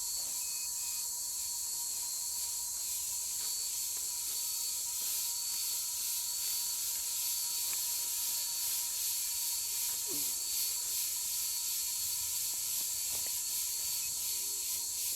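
Steady high-pitched chorus of insects, crickets or cicadas, with a thin constant tone underneath and a few faint knocks.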